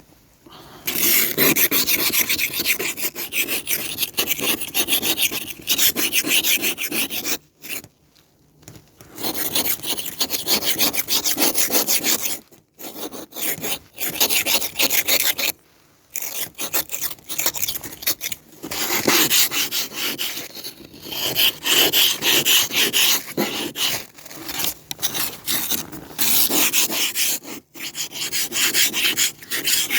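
Ice scraper rasping frost and ice off a car's glass in rapid back-and-forth strokes. The strokes come in spells of several seconds, with short pauses between them.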